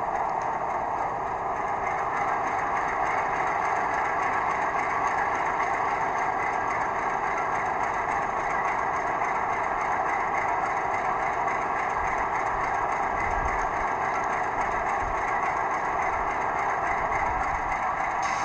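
Recorded diesel engine sound of a China Railway DF4B locomotive from an ESU LokSound V5 decoder, running steadily at an even level through the model's small speaker, heavy in the middle range and thin in the bass.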